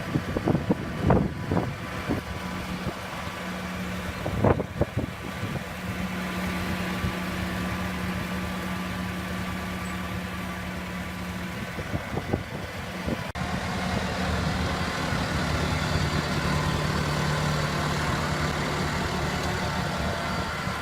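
Engine of a large farm machine running steadily, with several sharp knocks in the first few seconds. The engine note changes abruptly about two-thirds of the way through.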